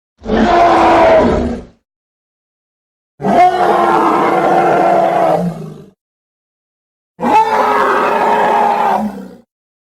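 Designed film sound effect of a hadrosaur (duck-billed dinosaur) call: three separate pitched animal calls with silence between them. The first is about a second and a half long, and the next two last about two and a half seconds each.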